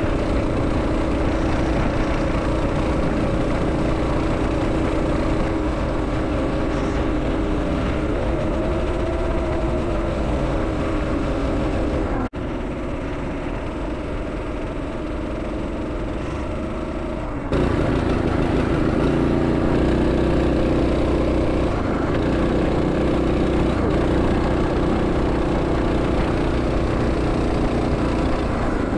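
Stock Predator 212 single-cylinder four-stroke engine on a Coleman B200R mini bike running at a steady cruising speed, with wind rush on the microphone. About twelve seconds in the sound cuts out for an instant and comes back quieter, then jumps back to full loudness some five seconds later.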